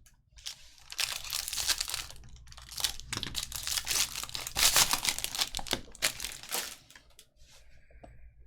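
Trading-card pack wrappers being torn open and crinkled in quick, rustling bursts that stop about seven seconds in.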